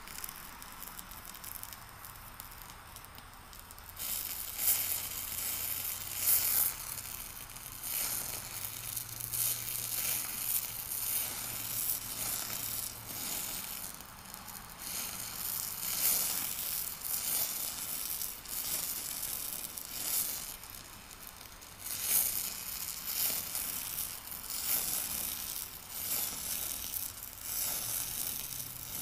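Eutalloy Ultra Jet oxy-acetylene powder spray torch hissing against a red-hot steel shaft end. From about four seconds in, irregular crackling, sizzling surges come and go as metal powder is fed into the flame a little at a time to build up the worn surface.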